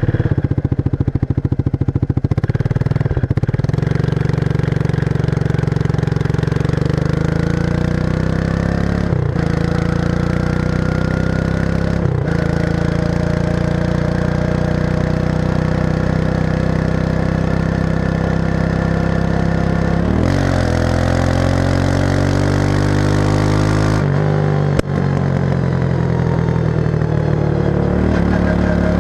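1994 Suzuki King Quad 300 ATV's single-cylinder four-stroke engine running through its stock muffler with the baffles removed and the inside modified. The revs shift under the throttle: a few brief dips, a climb in revs about twenty seconds in, and a drop back about four seconds later.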